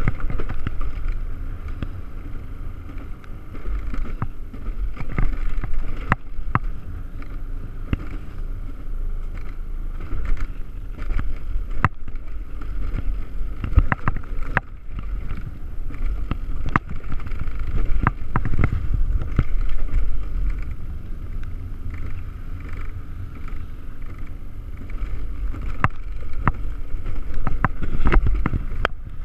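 Mountain coaster sled running down its steel pipe rail: a continuous rolling rumble from the wheels on the tube, with a steady higher whir and frequent sharp knocks and clacks at irregular intervals.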